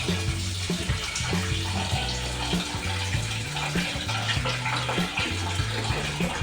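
Water running steadily from a kitchen tap, over background music with a low bassline.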